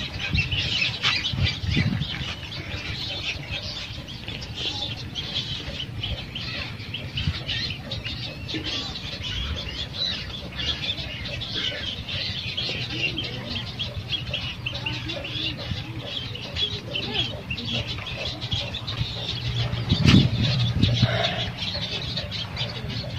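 Many small birds chirping and twittering without a break, over the scrapes and knocks of a small hand trowel working soil around a newly planted sapling, with one louder knock about twenty seconds in.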